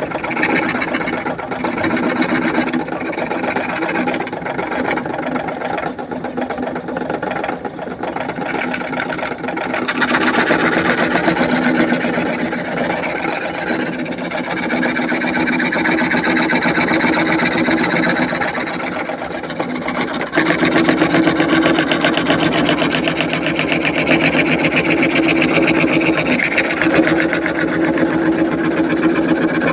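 Power saw running continuously while cutting wood along a curve, with a fast, even buzz; it gets louder about ten seconds in and again about twenty seconds in as the load on the blade changes.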